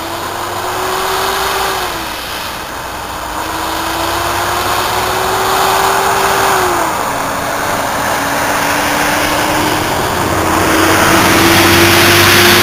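C-5 Galaxy's four turbofan engines on landing approach: a steady jet rumble with a whining tone that drops in pitch twice, growing louder toward the end as the aircraft comes in.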